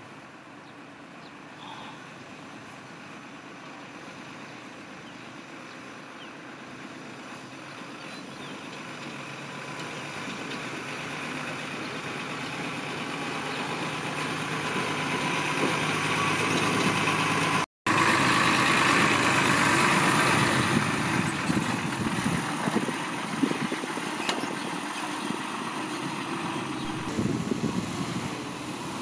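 Heavy dump truck's diesel engine running and growing steadily louder as the truck comes closer, loudest about two thirds of the way in, then easing off as it moves on. A split-second dropout breaks the sound just before the loudest part.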